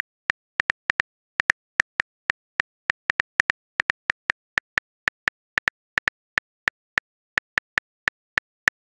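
Simulated phone-keyboard key clicks from a texting app, one short click per typed letter, about four a second at an uneven typing pace.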